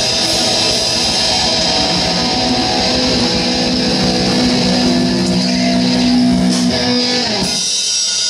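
Hard rock band playing live with electric guitars, bass and drums, ending the song on a held chord that cuts off sharply about a second before the end.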